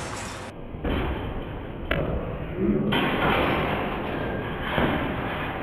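A basketball dunk attempt on an outdoor hoop: the ball and hands slam against the rim and backboard with a knock, over a steady rushing noise.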